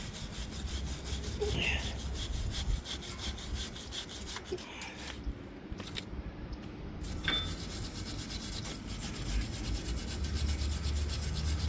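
Hand scrubbing of the bare metal hub mounting surface with an abrasive pad or brush, quick back-and-forth scratching strokes, cleaning off rust and old grime before a new hub assembly goes in.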